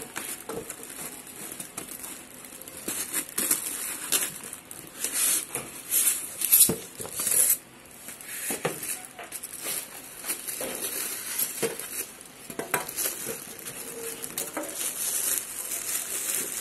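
Clear plastic wrap crinkling and rustling while a boxed unit is handled and lifted out of its cardboard box and foam packing, in irregular bursts that are loudest about halfway through.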